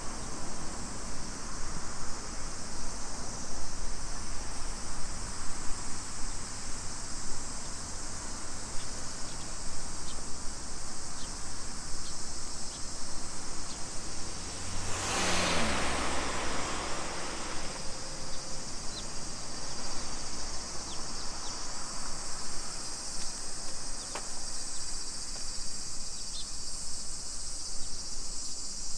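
Steady, high-pitched chorus of cicadas. About halfway through, a vehicle passes close by: its sound swells, then drops in pitch as it goes.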